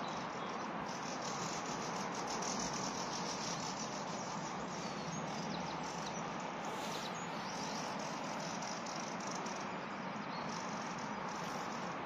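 A steady rushing hiss, with a few faint, short, high bird chirps over it.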